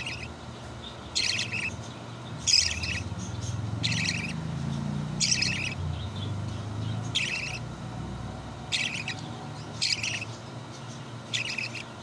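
Budgerigar chick giving short high begging chirps while taking formula from a feeding bottle, repeated about every second and a half, nine or so in all. A low hum lies underneath through the middle stretch.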